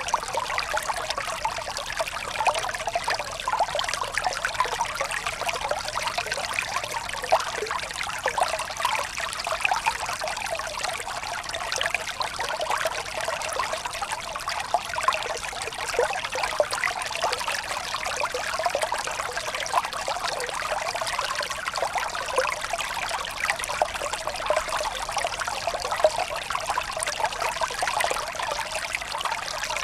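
Small stream running and splashing over rocks and ice-covered stones: a steady, even rush of water, mostly in the mid and high range with little deep rumble.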